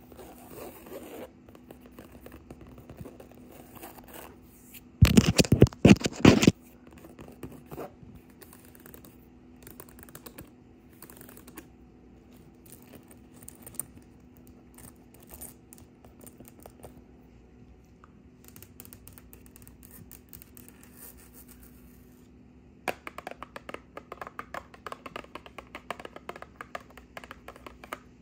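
Long fingernails scratching on upholstered chair fabric, with a much louder stretch of scratching about five seconds in. Near the end this gives way to quick, crisp fingernail tapping on a cardboard box.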